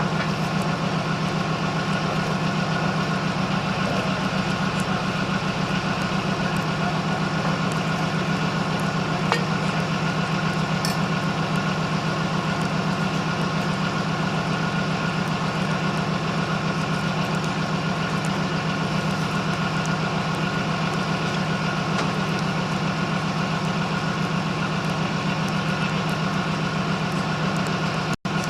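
A large engine idling steadily and evenly, with a brief dropout near the end.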